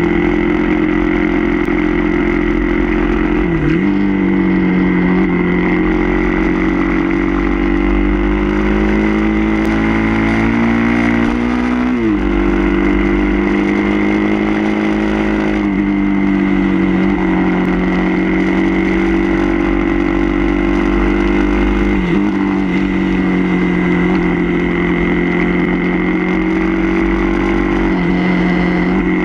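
Suzuki DR-Z400's single-cylinder four-stroke engine pulling under load. Its pitch swells and sags with the throttle through the corners and dips sharply several times as gears change or the throttle is rolled off, over a low rumble of wind on the microphone.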